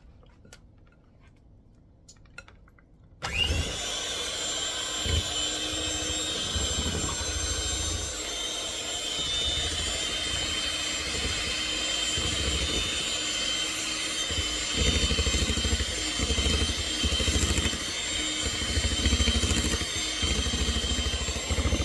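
Electric hand mixer switched on about three seconds in after a few faint handling clicks, then running steadily with a high whine. Its beaters churn unevenly through a thick whipped cream-cheese and Cool Whip mixture in a glass bowl.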